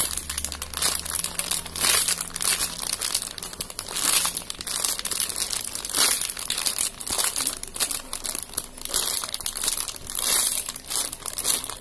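Clear plastic packaging crinkling as a hand squeezes a bagged foam squishy toy, in repeated crackly bursts about every two seconds.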